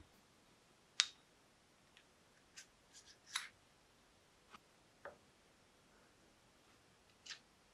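Light, scattered clicks and taps of small metal parts being handled: a steel rod in an aluminium linear-bearing block and a toothed aluminium pulley. The sharpest click comes about a second in.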